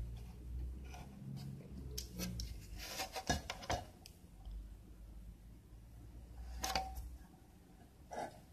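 Light clicks and taps from small objects being handled on a workbench: a cluster about three seconds in, another around seven seconds, and a faint one near the end.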